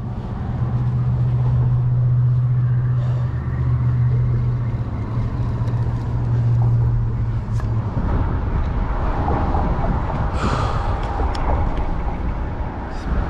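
A large motor vehicle's engine running with a steady low hum that cuts off about eight seconds in. A rushing noise runs throughout, with a short hiss a couple of seconds after the hum stops.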